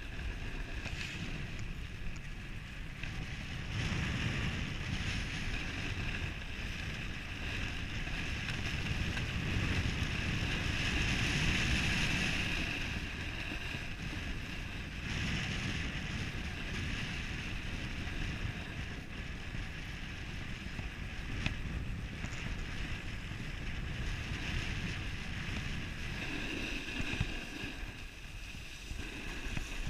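Wind rushing over a moving skier's camera microphone, with skis hissing and scraping over groomed snow; the hiss swells for a couple of seconds about ten seconds in, with a few light knocks along the way.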